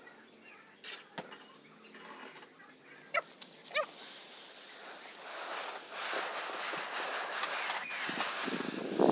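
Gravity-feed paint spray gun on an air hose hissing steadily as it sprays paint onto the crowbar, starting about three seconds in. Just before the hiss begins there is a brief wavering animal call, and the opening seconds hold only a few soft clicks.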